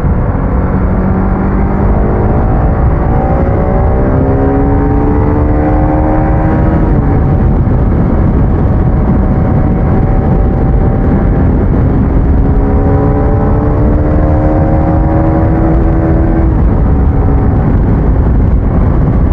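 Single-cylinder sport motorcycle engine accelerating hard under riding wind rumble. Its pitch climbs steadily through a gear, drops at a shift about seven seconds in, then climbs again until about sixteen seconds in.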